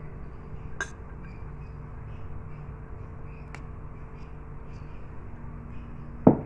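Quiet kitchen background: a steady low rush with a faint hum. A couple of small clicks break it, and one sharp knock comes near the end.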